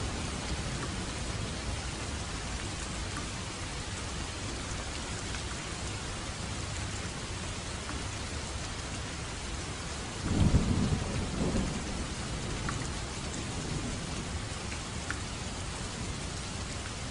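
Steady rain falling. About ten seconds in, a sudden rumble of thunder comes in as the loudest sound and fades over a couple of seconds.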